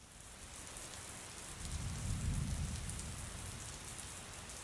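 Steady rain with fine drop ticks, and a low rumble that swells and fades about two seconds in.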